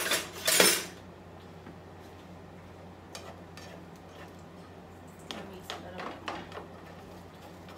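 Kitchen utensils clattering briefly at the start, then a spatula knocking and scraping a few times in a frying pan of cooking egg, over a steady low hum.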